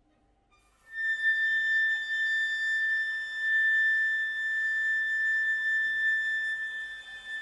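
Contemporary chamber music for flute and violins: after about a second of near silence, a single high note enters and is held steadily, with a faint quieter texture beneath.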